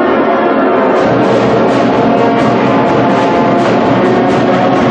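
Instrumental music with a steady beat that comes in about a second in.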